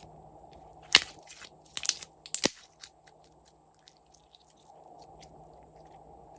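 Glossy slime being worked by hand: three sharp snapping pops, the first about a second in, then softer crackles that die away.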